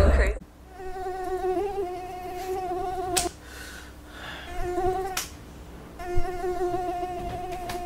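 Mosquito buzzing: a thin, slightly wavering whine that stops and starts three times. A sharp smack comes about three seconds in and another about five seconds in, and the buzz cuts off at each.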